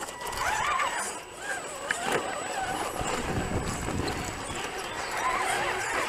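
Small electric motors and gear drives of 1/10-scale RC rock crawlers whining, rising and falling in pitch with the throttle as the trucks climb a steep rock face.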